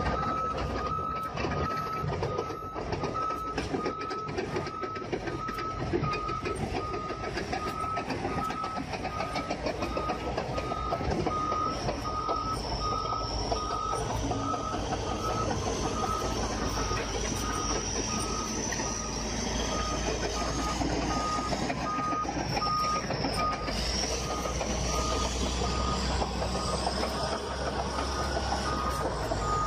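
Heavy vehicle's reversing alarm beeping at an even pace, a single repeated tone, over the steady rumble of its engine. A high whine comes in midway and rises toward the end.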